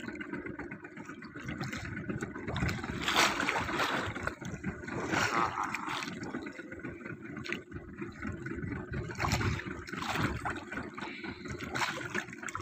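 Sea water sloshing and gurgling against the hull of a small boat, with a few short knocks now and then.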